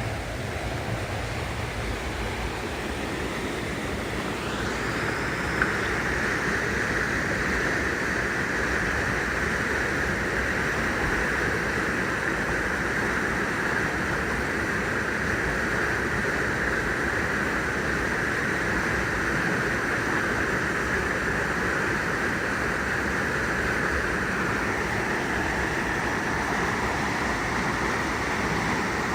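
Waterfall pouring into its plunge pool: a steady rushing of water that grows louder about five seconds in, then holds.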